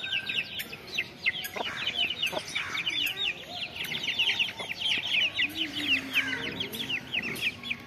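A brood of young Aseel chicks peeping constantly: many short, high, falling peeps overlapping one another. A lower clucking call from an adult bird joins in the second half.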